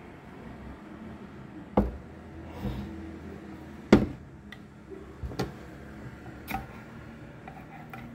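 A few sharp knocks and clatters of a metal cake tin being tipped over and knocked against a wooden cutting board to loosen a steamed banana cake that is stuck inside, the loudest knock about four seconds in. A steady low hum runs underneath.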